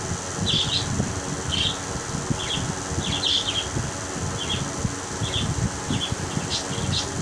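Small birds chirping: short high chirps, about one or two a second, over a steady low rumble.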